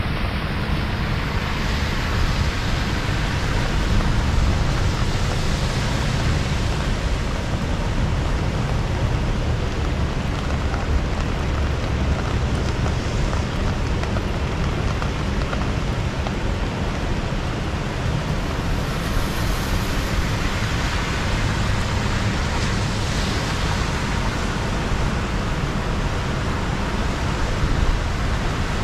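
Heavy rain pouring steadily, with wind rumbling on the microphone.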